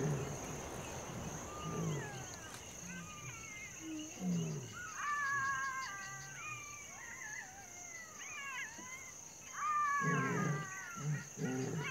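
Young lion cubs calling with high, wavering mews that rise and fall, loudest about five seconds in and again near the end. Low bursts near the end are the loudest part, and a steady high insect trill runs underneath, with background music.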